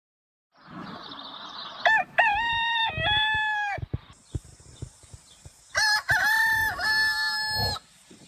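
Rooster crowing twice, two long cock-a-doodle-doos about two seconds apart, each with a rising start and a held, falling end.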